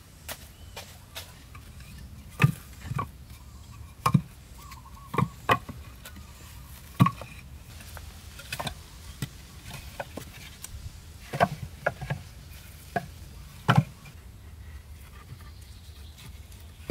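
Irregular knocks and thuds of wood being struck or handled, about fourteen at uneven intervals, each with a deep thump under a sharp click.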